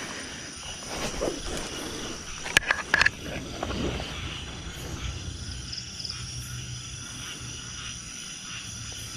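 Night insects trilling steadily, with a few sharp clicks about two and a half to three seconds in.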